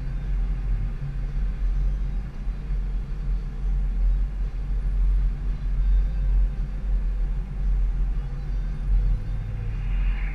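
Car driving at town speed, heard from inside the cabin: a steady low rumble of engine and tyres on the road. Near the end there is a brief swish as an oncoming car passes.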